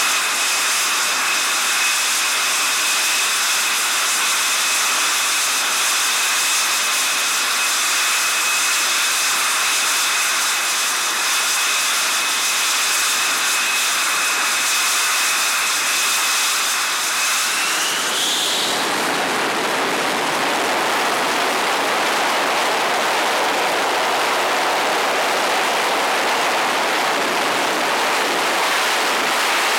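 MiG-29KUB's twin Klimov RD-33MK turbofans whining steadily with a high tone. Around eighteen seconds in the whine rises and is swallowed by a loud, full roar as the engines run up to afterburner for a carrier take-off, the jet still held on the deck.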